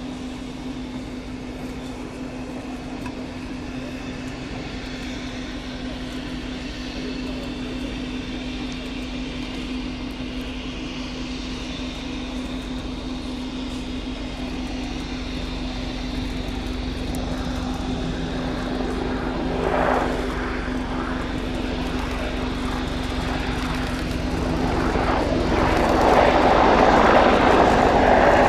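AH-64 Apache attack helicopter's rotor and twin turboshaft engines at low hover and moving off, with a steady tone under the rotor noise. It grows gradually louder as the helicopter comes closer and is loudest near the end.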